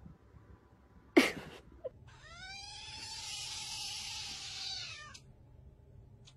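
A cat's short, sharp meow about a second in, the loudest sound, then a second cat's long, drawn-out meow with a rough, breathy edge whose pitch rises and then slowly falls, lasting about three seconds.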